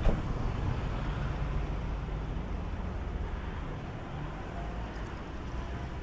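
City street traffic: a steady low engine rumble with a motor scooter passing close by, easing off a little about halfway through. A single sharp knock sounds right at the start.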